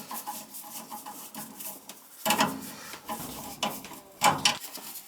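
Metal tools and parts clattering and scraping as they are handled, with three sharper clanks about two, three and a half, and four seconds in.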